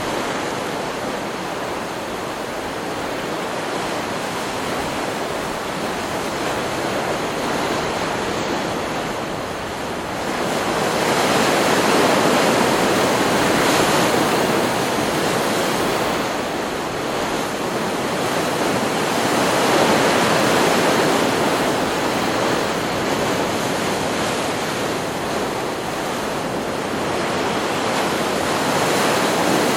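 Ocean surf from a stock beach recording: waves breaking and washing in a continuous rush that swells louder with each set, about ten seconds in, again around twenty seconds, and near the end.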